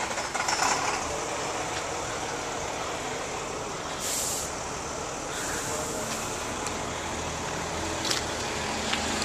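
Steady motor-vehicle noise, like a truck running nearby, with a short sharp hiss about four seconds in.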